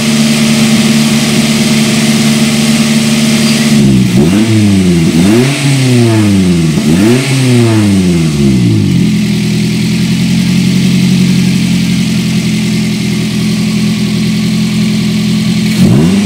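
Daihatsu Gran Max 1.5's engine idling, then revved three times in quick succession about four seconds in, the pitch rising and falling with each rev. It settles back to a steady idle, then is revved once more briefly near the end.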